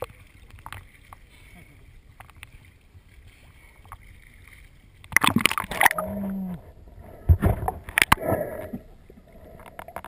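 Seawater lapping quietly around a camera held at the surface, then loud splashing and muffled underwater bubbling and thumps once it dips under about five seconds in, with a short low hum near six seconds.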